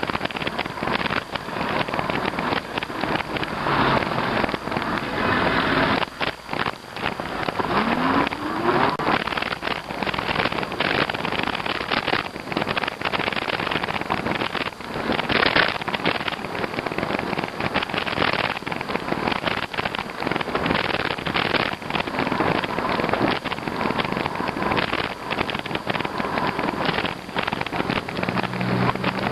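Wind buffeting the microphone and road noise from an e-bike ride on a winter street, with constant crackling and a brief rising tone about eight seconds in.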